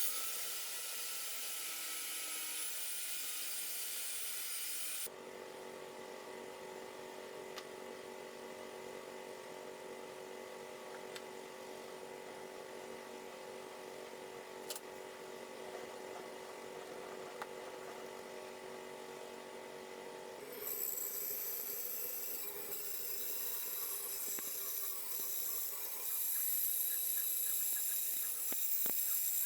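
Electric power tools running on pine wood, a steady motor whine heard in several sections that change abruptly about five, twenty and twenty-six seconds in.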